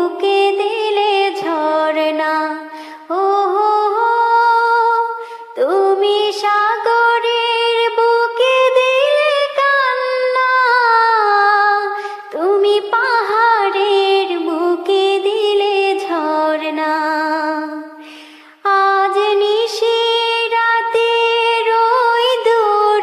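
A woman singing a Bengali gazal, an Islamic devotional song. She sings long, ornamented phrases that slide and waver in pitch, with short breaks between phrases, and no instruments can be heard.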